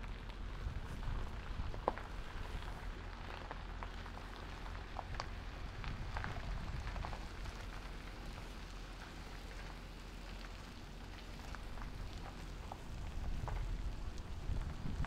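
Tires of a loaded triple-axle boat trailer and its pickup truck rolling slowly over gravel: a steady crackle with scattered small pops, over a low rumble.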